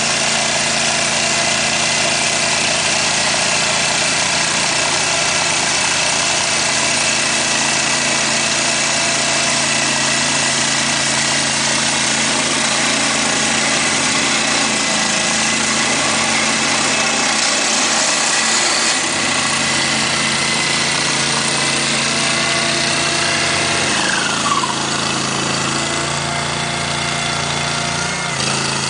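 Engine of a ditch-digging machine running steadily, its pitch stepping down about two-thirds of the way through and shifting again near the end, with a brief falling whine between.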